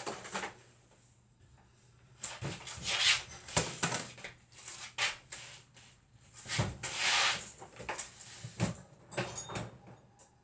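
Kitchen handling sounds: scattered knocks and clicks with a few short bursts of rustling.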